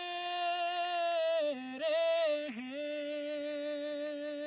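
A man singing a naat a cappella, a held vowel with no words, sustaining long steady notes with brief ornamental dips in pitch.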